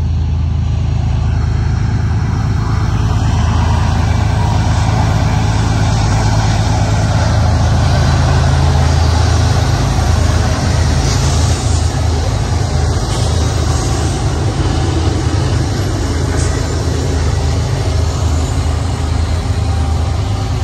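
Five BNSF diesel-electric locomotives hauling an eastbound intermodal train up the grade toward the summit, their engines a deep steady rumble that grows louder as they draw alongside about halfway through and stays loud as the units pass.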